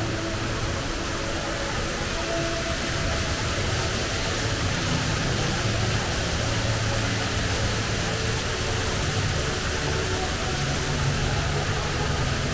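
Steady rush of falling water from the HSBC Rain Vortex, an indoor waterfall dropping about 40 metres from the roof into a pool.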